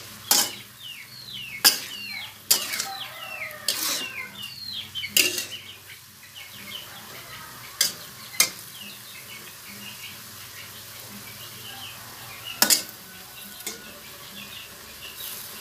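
A metal spatula scraping and knocking against a wok as greens and egg are stir-fried, over a low sizzle. The strokes come irregularly, often with a short falling squeak of metal on the pan, and thin out in the second half.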